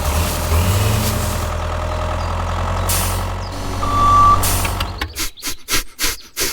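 A small motor runs steadily, with one short beep about four seconds in. The hum stops about a second later and gives way to a rapid run of sharp taps.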